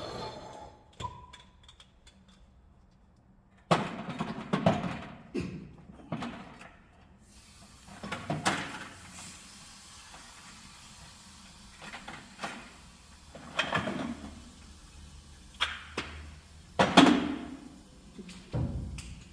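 Scattered knocks and clunks of tools and copper pipe being handled during air-conditioner pipe work, about nine separate bumps a second or two apart with quiet between them.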